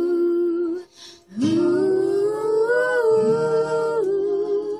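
A voice holding long wordless notes, a short break about a second in, then a second long note that rises a little and steps down near the end.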